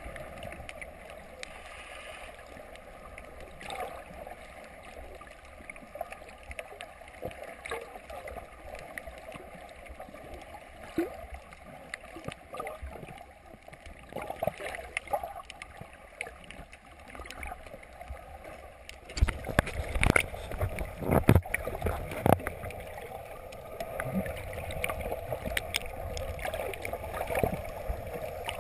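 Muffled underwater sound picked up by a camera in a waterproof housing: a steady watery hiss with scattered clicks and crackles. About two-thirds of the way in comes a burst of louder knocks and low rumbling.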